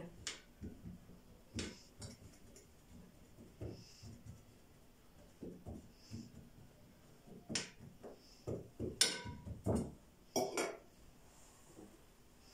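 A fork pricking pizza dough in a round metal baking pan: irregular light taps and clinks as the tines strike the pan through the dough, with a few louder clinks past the middle.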